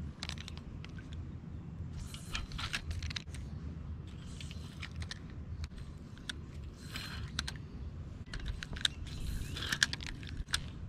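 Fishing reel cranked in short turns, giving clusters of rattling clicks every second or so, over a low steady rumble.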